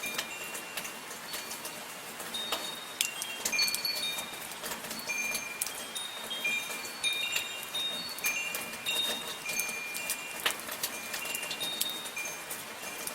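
Wind chimes ringing irregularly, many short high metallic tones struck at random, over a steady hiss of soft rain with scattered drop clicks.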